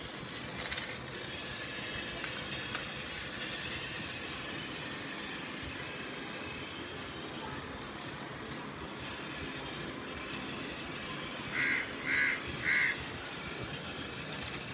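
Motorized toy bullet train running steadily along a plastic track with a continuous whir. Near the end a crow caws three times in quick succession.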